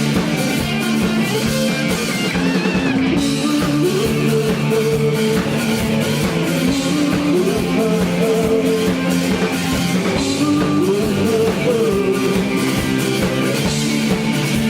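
Rock band playing live, with electric guitar to the fore over bass and drums.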